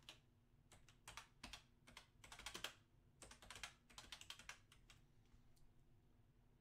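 Faint typing on a computer keyboard in short irregular bursts of key clicks, as when someone looks something up on a computer.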